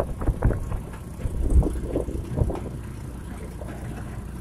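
Tossa motorbike riding along a road: steady engine and road rumble with wind noise, and knocks and rattles from the bumpy ride over the first couple of seconds before it settles to an even run.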